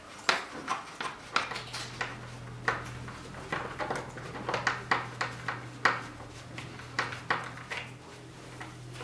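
Irregular small metallic clicks and taps of a hand tool working small metric bolts and lock nuts, fastening the wing struts to a foam RC plane wing.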